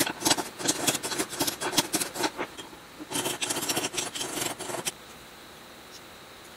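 Claw hammer tapping rapidly on a metal sleeve over an electric motor's rotor shaft, driving a new bearing onto the shaft. The taps come in two quick runs, the second starting about three seconds in, and stop about five seconds in.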